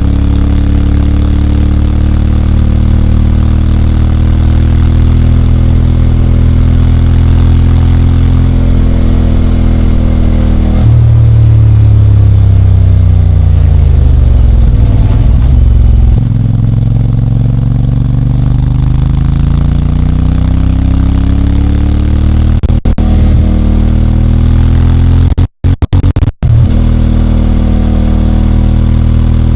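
CFMOTO 450MT parallel-twin engine running under way, its pitch holding, then falling as the bike slows and climbing again as it speeds up, with gear changes about eleven and sixteen seconds in. The sound cuts out briefly twice near the end.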